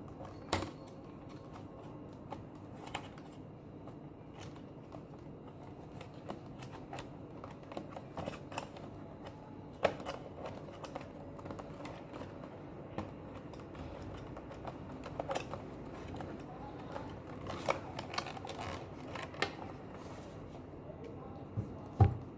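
Scattered small clicks and taps of a plastic toy car and its box packaging being handled as the car is taken out and freed from the screws holding it.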